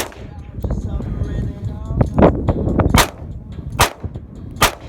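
AR-15 rifle firing single shots: one right at the start, then three more a little under a second apart in the second half.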